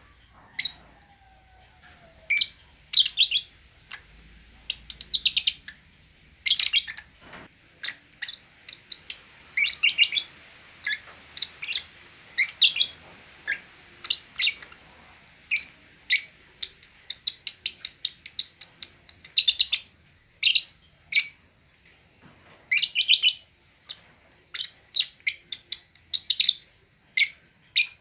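Fischer's lovebirds chattering: quick, high-pitched chirps in short clusters, with faster, denser runs of chirps past the middle and again near the end.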